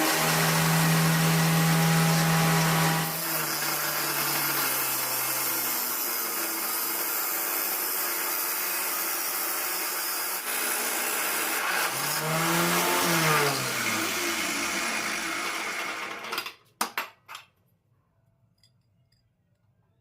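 Angle grinder running at speed, its pitch dipping and recovering briefly around twelve seconds in. It stops suddenly about sixteen seconds in, followed by a few clicks.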